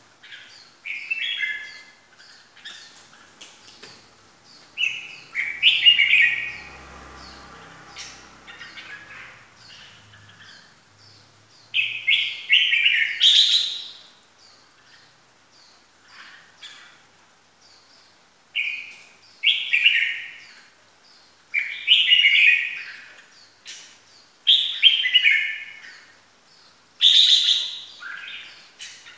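Caged red-whiskered bulbul singing: loud warbling phrases of a second or two, repeated every few seconds, with short, fainter, higher chirps in between.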